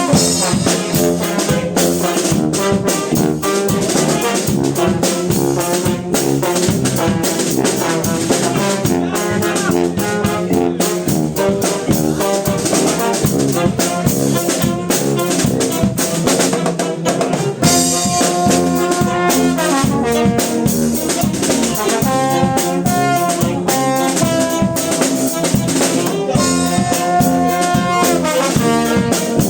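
Brass band (fanfare) playing live: brass with drum kit over a steady beat. About two-thirds of the way in, long held brass notes come in over the top.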